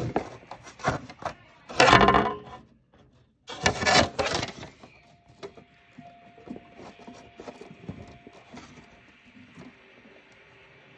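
Dishes and cutlery clattering and clinking, with two loud bursts about two and four seconds in, then lighter scattered clinks.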